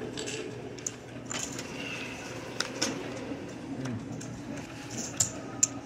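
Blackjack table handling: scattered sharp clicks and clinks of casino chips and playing cards on the felt, the two loudest clicks a little after five seconds in, over a low murmur of casino voices.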